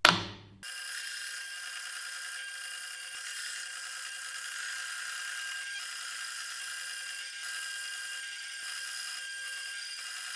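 Metal-cutting bandsaw blade sawing through a metal block, a steady whine with several ringing tones that starts abruptly about half a second in, just after a brief knock.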